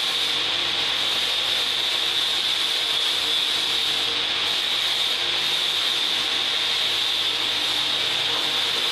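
Tilting stainless-steel wet grinder running, its grinding stones rubbing inside the drum with a steady gritty hiss while it unloads batter.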